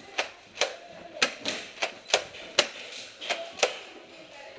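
Airsoft guns firing semi-automatic: about nine sharp, snapping shots in quick, uneven succession.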